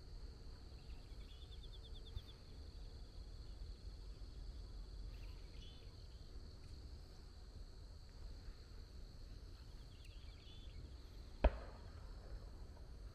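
Insects: a steady, faint high drone with short bursts of rapid, evenly spaced chirps near the start and again near the end, over a low rumble on the microphone. A single sharp click about eleven and a half seconds in is the loudest sound.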